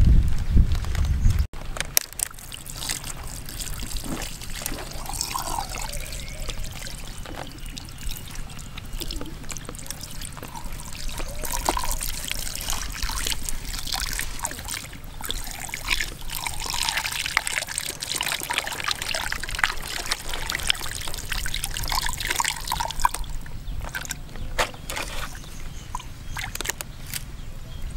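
Water trickling and splashing onto a gutted stingray as it is rinsed, with wet squelching as the innards are handled. A short low rumble at the very start cuts off abruptly about a second and a half in.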